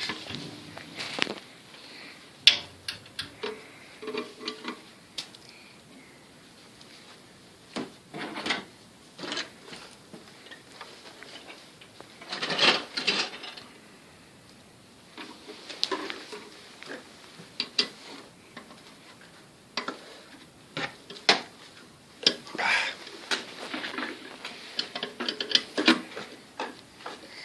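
A screwdriver tapping, clicking and scraping against screws and a table in irregular spurts, with several denser flurries of knocks.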